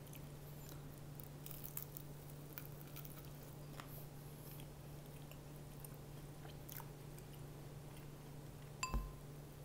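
A person chewing crispy fried chicken, with faint crunchy crackles, over a steady low hum. Near the end there is a single sharp knock with a short ring.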